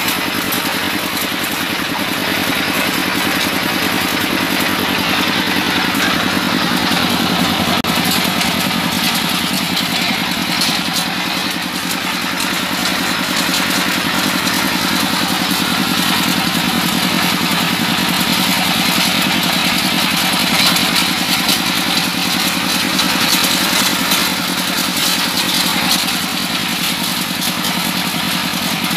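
Stationary diesel engine driving an organic fertilizer grinding machine, running steadily throughout.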